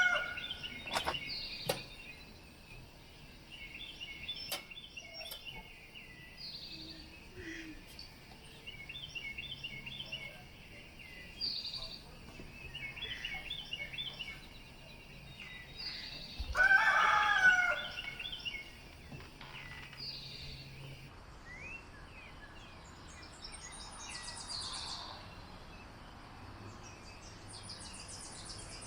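Small songbirds chirping and singing in repeated short phrases, with a rooster crowing loudly once about sixteen seconds in.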